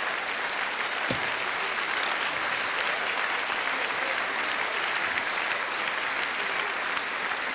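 Large theatre audience applauding steadily, with a brief low thump about a second in.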